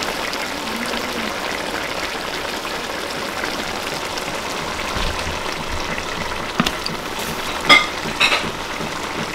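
A pot of collard greens simmering and sizzling in its oil, a steady hiss. Near the end a few sharp clinks sound as a pot lid is handled.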